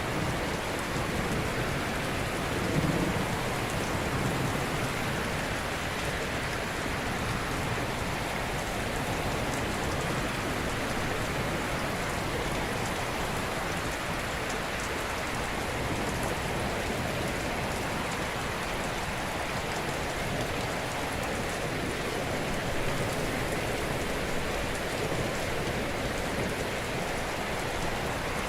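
Ocean surf: gentle waves washing ashore in a steady, continuous hiss, with a slight swell about three seconds in.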